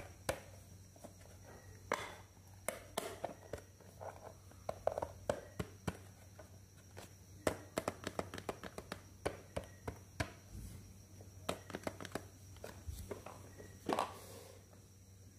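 Hands handling a hard plastic toy handbag: irregular sharp clicks and taps of plastic, with light rustling between them.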